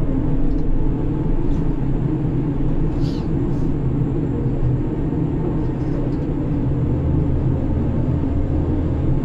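Steady drone of a ship's grab crane machinery heard from inside the operator's cabin, with two faint clicks about three seconds in.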